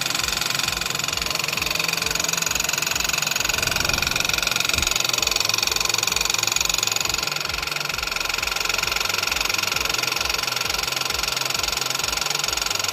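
Hyundai HB20/Creta 1.0 TGDI turbo three-cylinder engine idling with a rapid, even mechanical ticking. The ticking comes from a faulty high-pressure fuel pump, which needs replacing because it cannot be repaired.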